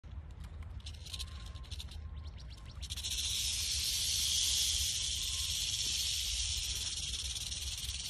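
Western diamondback rattlesnake shaking its tail rattle: a few short bursts of rattling, then from about three seconds in a continuous high buzz. It is the snake's defensive warning while coiled.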